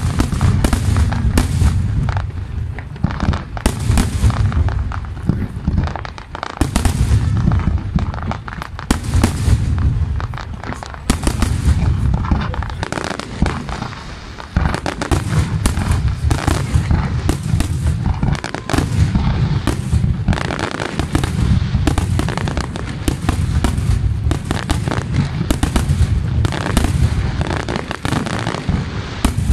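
Fireworks display: aerial shells bursting in a dense, continuous barrage of booms and crackling, easing off only briefly a couple of times.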